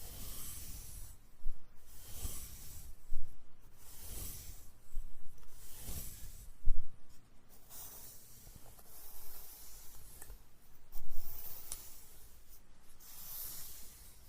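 Close-miked ASMR brushing: a series of soft, scratchy swishing strokes rubbed against the microphone, a second or two apart, with a few sharper scrapes among them.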